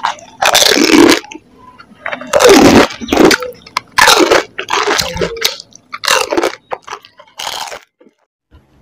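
Crisp golgappa (pani puri) shells being bitten and chewed with the mouth open, in a string of loud crunches and cracks about a second apart. The crunching dies away near the end.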